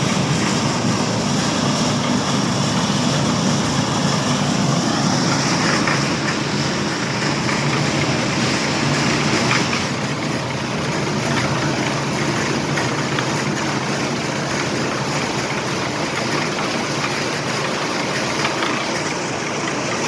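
A motor or engine running steadily, with a faint rising whine about five seconds in and a high hiss that drops away about halfway through.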